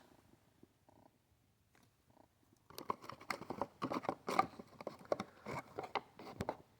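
Packaging and small parts being handled by hand: a quick, irregular run of rustling and clicking that starts about three seconds in and stops just before the end.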